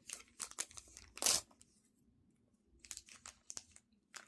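Thin plastic wrapper crinkling and being torn open by hand, a run of small crackles and clicks with one louder rip a little over a second in.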